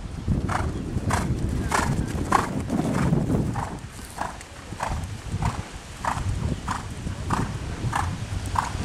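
Ridden horse trotting on a sand arena: steady, even hoofbeats, roughly three every two seconds.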